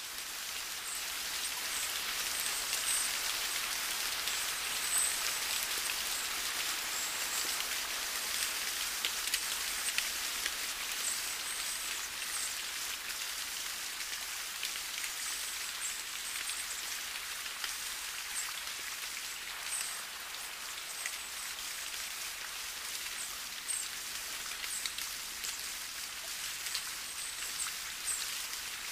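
Gentle rain falling on leaves: a steady, even patter with individual drops ticking through it.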